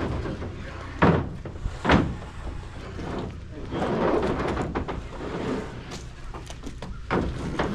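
Wooden oak fence boards being handled and stacked into a truck: two heavy thunks about a second apart, a stretch of boards sliding and scraping against each other, then another knock near the end.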